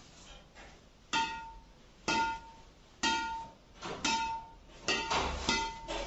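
Shuttlecock tapped repeatedly off the strings of an Apacs Graphite 999 badminton racket strung with Yonex BG66 Ultimax, each hit a sharp ping that rings briefly. About one hit a second at first, then quicker hits near the end.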